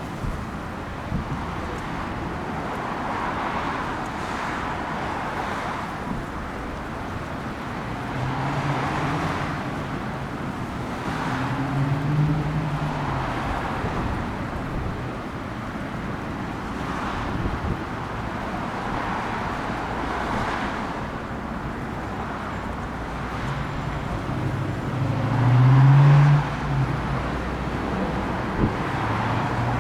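Road traffic, with cars passing every few seconds. A vehicle engine's low hum swells and fades twice, and is loudest near the end.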